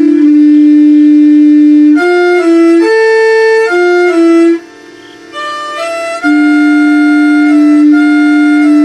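A municipal FM announcement-broadcast chime melody, heard through an internet radio simulcast. It is one melody line of clean held notes with a long sustained note at the start and near the end, and it drops much quieter for about a second and a half just past the middle.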